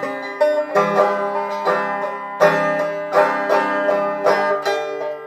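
Banjo picking a run of chords, each struck chord left to ring into the next.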